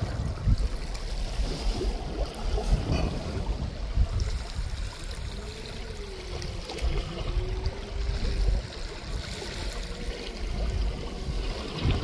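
Wind buffeting the microphone over a steady hiss of trickling water; a faint wavering tone rises and falls for a few seconds in the middle.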